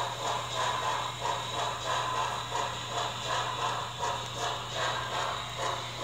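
HO-scale NYC J-1 Hudson 4-6-4 model steam locomotive running, its DCC sound decoder giving a regular steam chuff about two beats a second over a steady hum.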